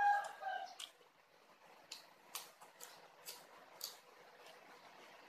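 Chewing of a raw green vegetable stalk: a few separate crisp crunches spread over a few seconds. A brief pitched call comes right at the start.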